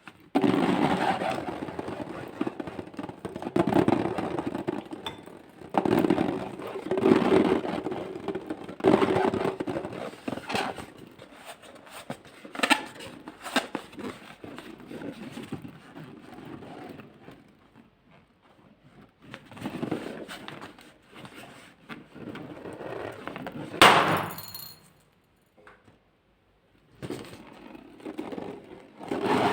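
Slime handling: repeated bursts of squishing, crinkling noise every second or two, with one sharp snap about 24 seconds in.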